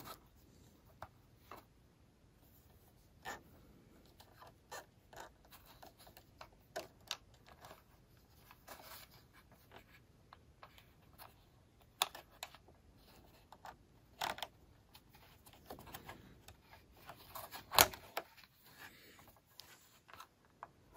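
Hard plastic parts of a ring light's tablet holder clicking and rattling as they are handled and fitted onto the tripod mount, in scattered irregular clicks with a sharper knock late on.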